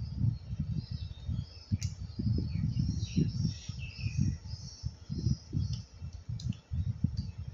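Low, irregular rumbling bumps on the microphone, with a few small clicks as the plastic GoPro camera parts are handled and faint birds chirping in the background.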